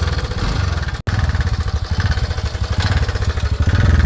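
TVS Ntorq 125 scooter's fuel-injected single-cylinder engine idling with the abnormal engine noise that the repair sets out to fix. The sound drops out for an instant about a second in.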